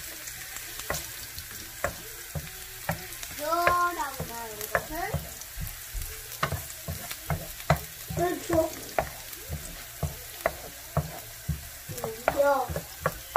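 Minced garlic sizzling in hot oil in a nonstick frying pan as a wooden spatula stirs it, with frequent sharp taps and scrapes of the spatula on the pan. Short squeaky pitched sounds come through about four seconds in, around eight seconds and near the end.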